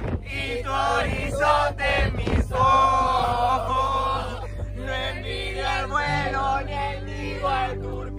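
Music with a man's voice singing, held notes over a steady backing.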